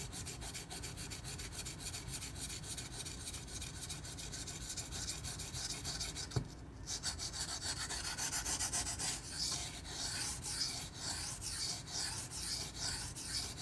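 A 154CM steel knife blade is pushed and pulled in quick repeated strokes across a soaked 1000-grit Japanese water stone whose surface still feels glazed, making a steady rhythmic scraping. These are the strokes on the second side of the edge after a burr has been raised on the first. The strokes pause briefly about six and a half seconds in, then resume louder.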